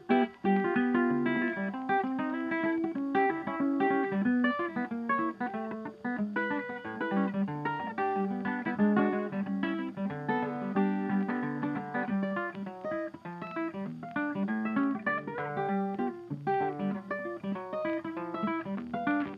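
Background music: a plucked acoustic guitar playing a quick run of notes without a break.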